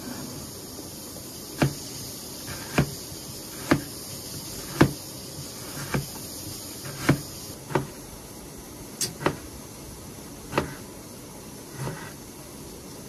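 Chinese cleaver cutting through a raw potato onto a plastic cutting board: one sharp knock of the blade hitting the board about every second, over a steady hiss.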